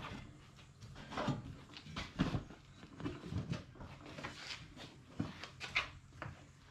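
Hard plastic ATV body panels, the fender and a footwell panel, knocking, scraping and clacking against each other in short irregular bursts as they are pushed and worked into place by hand.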